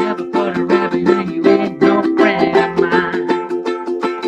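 Ukulele strummed in a brisk, even rhythm, with a man's voice singing a wordless line over it about two seconds in.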